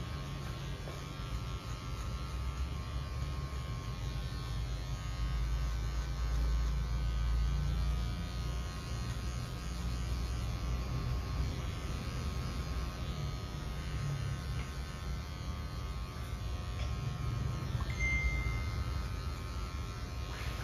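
Cordless electric hair clippers buzzing steadily while cutting the hair at the side of a client's head.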